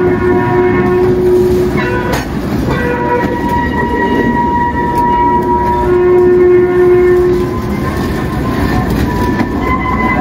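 Coal hopper cars rolling slowly past, their steel wheels rumbling on the rail and squealing in steady high tones that come and go, with a sharp clank about two seconds in.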